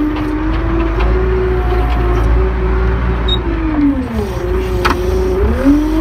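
John Deere 310E backhoe's diesel engine running steadily. Its pitch drops and climbs back up in the last two seconds, and there is a sharp metallic clank near the end.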